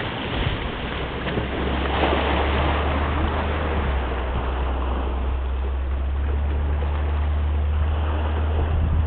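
Gulf water washing against a rock shoreline with wind on the microphone, swelling louder about two seconds in, over a steady low hum.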